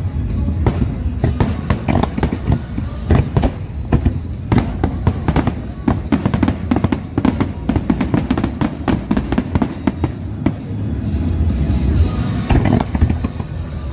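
Large fireworks display: a dense, rapid string of aerial shell bursts and crackling reports, several a second, over a continuous low rumble, with music underneath.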